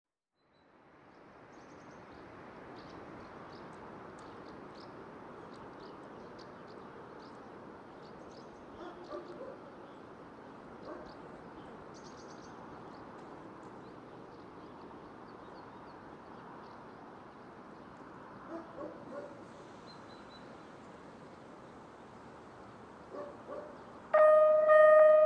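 Steady outdoor background with birds chirping and a few short animal calls. About a second before the end, a level crossing warning bell starts ringing loudly and steadily, the signal that a train is approaching.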